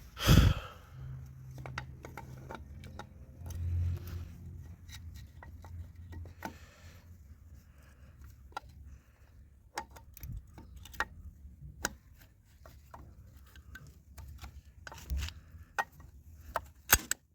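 Clutch release bearing and release fork being fitted onto a gearbox by hand: scattered light metal clicks and knocks, with a heavy thump just at the start and a few sharp clicks near the end.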